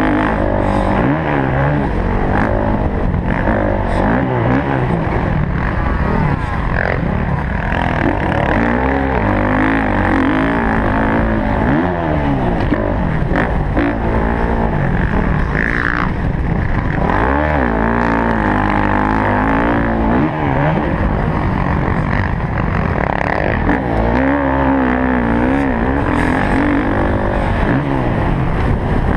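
Motocross bike engine heard from the rider's helmet, revving up and dropping back over and over as the bike accelerates, shifts and rolls off around the track.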